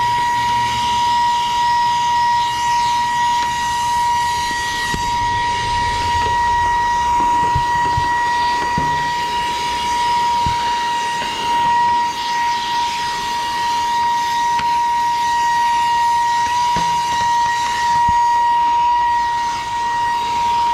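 SAKER cordless mini vacuum cleaner running with a brush attachment, a steady high whine over a rush of air as it sucks up dirt and hair, with a few faint ticks of debris.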